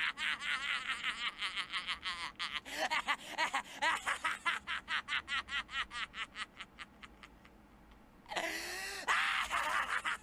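Cartoon boy's high, rapid staccato giggling, several bursts a second, that slows and fades almost to nothing about seven seconds in; then a longer drawn-out laugh sound and the quick giggling starts up again near the end. A laughing fit running out of steam and restarting.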